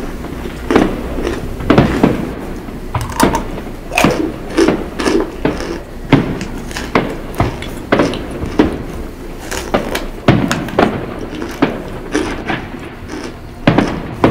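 Chunks of compressed cornstarch crunching loudly between the teeth close to the microphone, in sharp irregular crunches about one or two a second, with fireworks popping in the distance.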